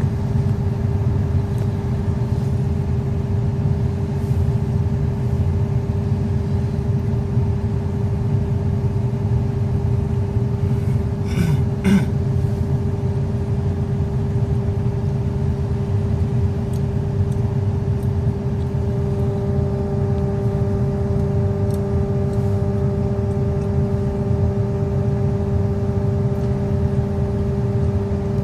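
Excavator's diesel engine running steadily, with a constant tone above its low drone. There is a brief knock about twelve seconds in.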